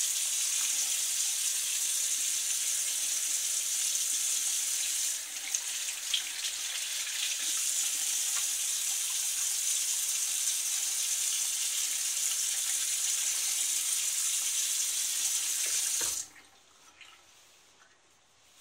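Bathroom faucet running steadily into a sink while a disposable face mask is rinsed under the stream by hand. The water is shut off abruptly near the end, leaving only faint handling sounds.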